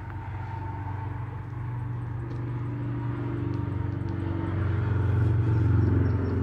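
Diesel locomotive engine idling on a stopped freight train: a low, steady drone that swells a little near the end.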